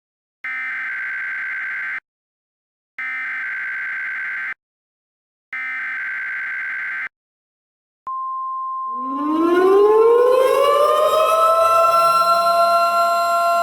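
Three bursts of warble-like digital header tones, each about a second and a half long with short gaps between. About eight seconds in, a steady single-pitch weather-radio warning alarm tone begins. Within a second an outdoor warning siren starts winding up beneath it, rising in pitch and levelling off while the alarm tone continues.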